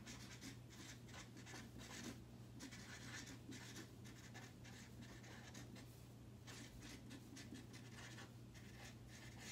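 Felt-tip marker writing on a paper chart: faint, quick scratching strokes in bursts with short pauses, over a steady low hum.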